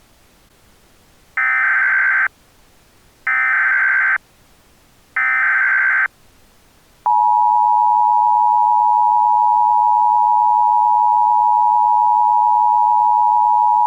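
Emergency Alert System alert start: three short bursts of SAME header data, each just under a second. About seven seconds in, the steady two-tone EAS attention signal begins and holds on without a break.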